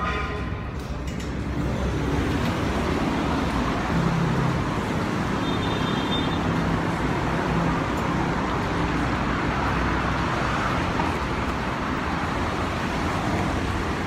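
Steady traffic noise from a busy city road, with motor vehicles running past.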